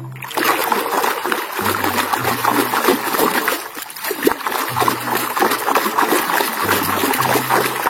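Water splashing and spraying steadily over a toy mask as it is washed clean, with a brief lull about halfway through.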